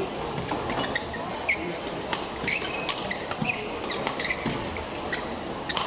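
Badminton rally: sharp racket strikes on the shuttlecock and players' shoes squeaking on the court, over a steady crowd murmur.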